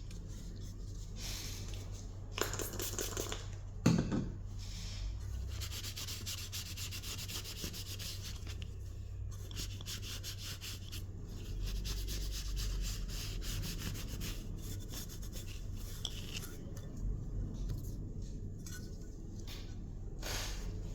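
Old foam surround residue being scraped and rubbed off the edge of a speaker cone, in bursts of quick scratchy strokes. The longest, densest run of strokes falls in the middle, and there is one sharp knock about four seconds in.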